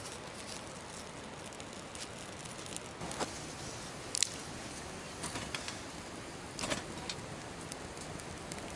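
Twigs burning in a small wood camp stove, crackling with scattered sharp pops over a steady hiss.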